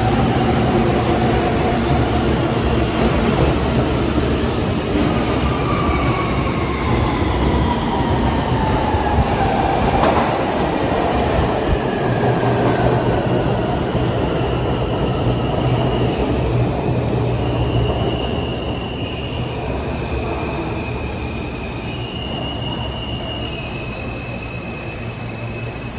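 R160 subway train running with heavy wheel and rail noise while its motor whine glides down in pitch, a sign of the train slowing. A sharp clack comes about ten seconds in. Short, steady high tones in steps follow in the second half as the noise eases a little.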